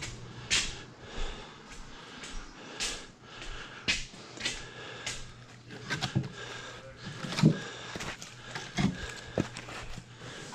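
Split firewood being handled and stacked: irregular wooden knocks and clunks as logs are set down, about a dozen of them, over a faint steady low hum.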